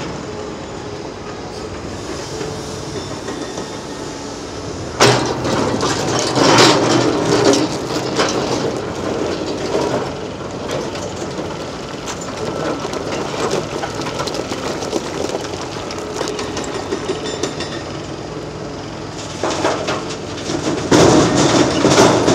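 Heavy crawler excavator's diesel engine running under load while its steel bucket works hard Black Jurassic rock, with two spells of loud rock clattering and scraping, about five seconds in and again near the end.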